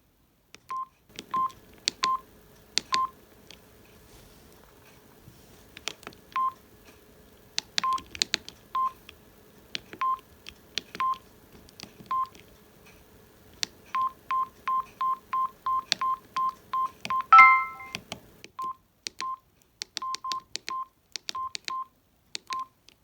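Samsung SGH-D600 mobile phone's keypad beeps as its keys are pressed: short single-pitched beeps, each with a click, spaced out at first and then in a quick run of about four a second. One louder, longer multi-pitched tone sounds about 17 seconds in.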